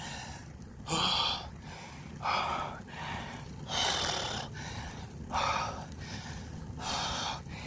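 A cyclist breathing hard from the effort of a steep climb: about five loud, puffing exhalations, roughly one every second and a half.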